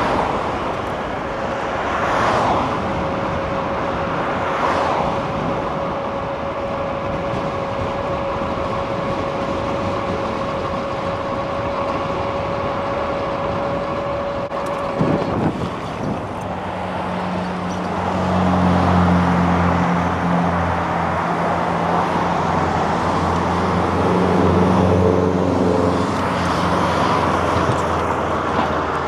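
Road traffic: motor vehicles passing, with a low steady engine hum from a vehicle close by in the second half.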